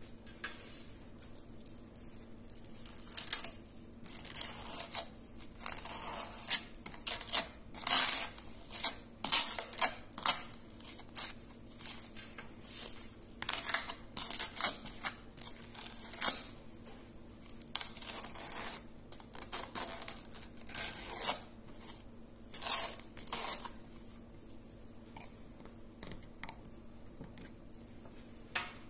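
Serrated table knife scraping a thick spread across a slice of dry, crunchy toast: a run of irregular scratchy strokes that stop a few seconds before the end.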